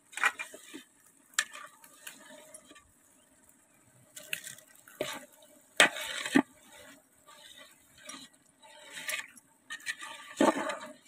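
Wooden spatula stirring noodles in boiling water in a large aluminium pot: scattered knocks and scrapes against the pot with water sloshing, the loudest knocks about six seconds and ten and a half seconds in.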